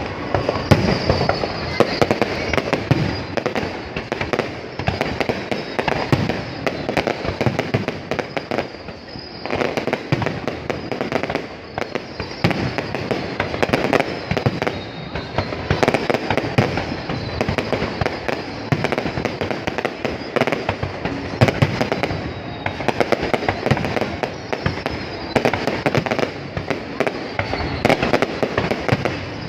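Fireworks display: a continuous barrage of overlapping bangs and crackling, with brief faint high whistles now and then.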